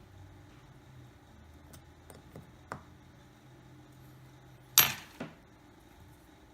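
Small clicks and taps of tools and phone parts being handled during phone repair, with one loud sharp clack about five seconds in and a smaller click just after.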